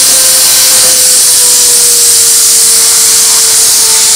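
Air-driven micro turbine spinning at high speed: loud rushing air hiss with a thin whine that slowly drops in pitch.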